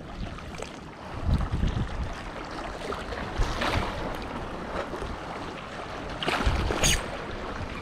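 Wind blowing on the microphone over the wash of sea waves, with louder gusts about a second and a half in and again near the end.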